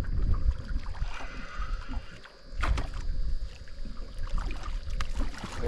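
Handling noise and knocks in a small boat, with a sharp clatter about two and a half seconds in and a faint steady high whine behind.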